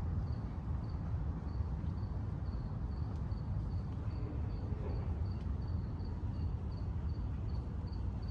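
A cricket chirping in an even rhythm, short high chirps about two and a half times a second, over a steady low rumble.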